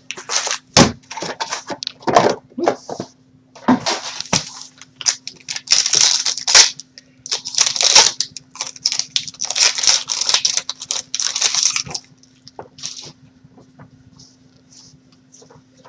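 Packaging of a sealed box of trading cards being opened by hand: plastic wrapper and packs crinkling and tearing in bursts, stopping about twelve seconds in and leaving only faint rustles.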